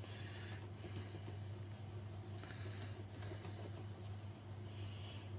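Cloth rag rubbing over a sheet of lead, wiping patination oil onto the stamped surface: a soft scrubbing hiss that swells with some strokes. A steady low hum runs underneath.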